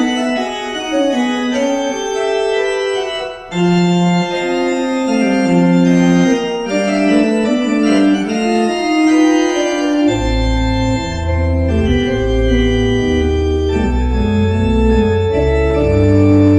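Pipe organ playing a closing voluntary: sustained chords moving from note to note, with a short break just after three seconds. Deep pedal bass notes join about ten seconds in.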